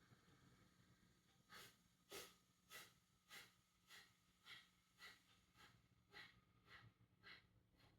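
Kapalabhati breathing: a faint, even run of short, forceful exhales through the nose, each snapped out by the belly, a little under two a second, starting about a second and a half in.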